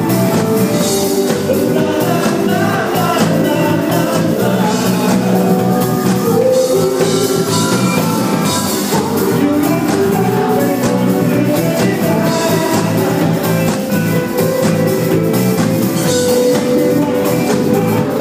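Loud live band music: drum kit, hand percussion, bass and electric keyboards playing together, with a voice singing over them.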